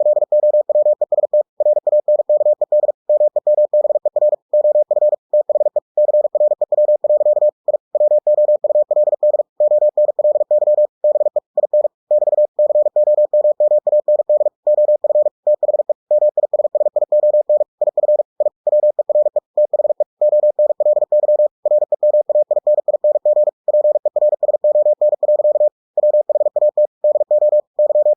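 Morse code generated by ebook2cw software, sent at 45 words per minute: a single steady mid-pitched tone keyed on and off in very fast dots and dashes, with short pauses between words.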